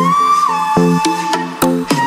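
Background electronic music: a held, sliding lead melody over chords, with drum hits every half second or so.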